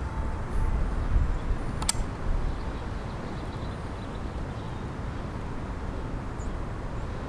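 A single shot from an Umarex Gauntlet 2 .22 PCP air rifle, a sharp crack about two seconds in, over a steady low rumble.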